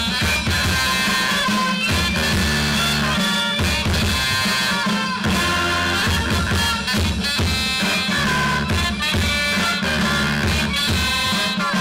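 A brass band playing music, with steady held bass notes under the melody.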